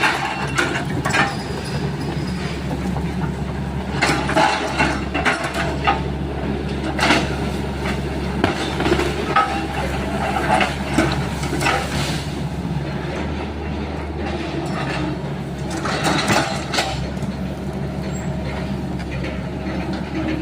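Sany SY135 excavator's diesel engine running steadily under load, with several bursts of knocking and cracking as the bucket works oil palm trunks.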